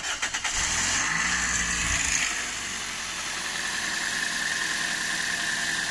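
A hot car engine starting: it catches with a short rev in the first two seconds, then settles into a steady idle. The knock is practically absent now that the engine is hot, and only a little chain noise is heard as it fires, which the owner takes for a stretched timing chain.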